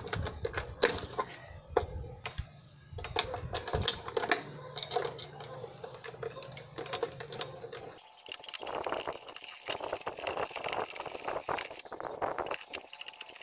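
Irregular clicks, taps and scrapes of plastic and metal as a screwdriver works a duplex convenience outlet into its surface-mount box.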